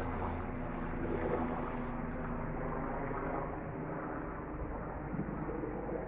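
Low, steady drone of a passing helicopter's engine, fading away over the first few seconds, with indistinct people's voices in the background.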